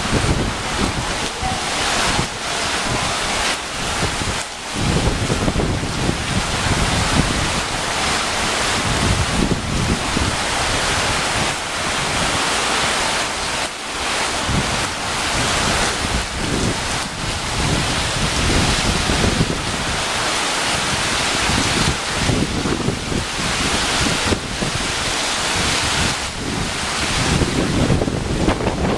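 Hurricane wind blowing in uneven gusts, buffeting the microphone.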